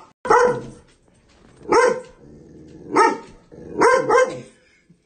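Small dog barking five times in short sharp barks, spaced about a second apart, the last two in quick succession.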